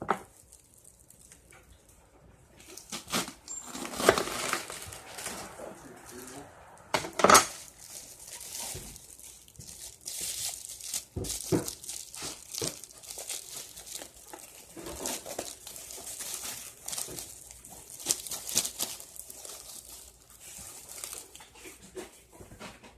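Kitchen handling noises during food preparation: plastic packaging crinkling and dishes and utensils clinking and knocking at irregular moments. It is quiet for the first few seconds, with the sharpest knocks about four and seven seconds in.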